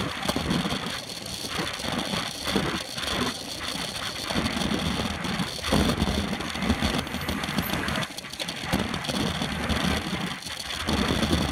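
Wind and road noise on the microphone of a camera mounted on a racing bicycle riding inside a pack of road cyclists: a steady rushing rumble that gusts unevenly and dips briefly several times.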